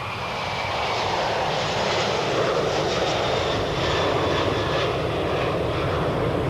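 Jet airliner's turbofan engines running loud, a dense rushing noise with a faint high whine, building over the first second or two and then holding steady.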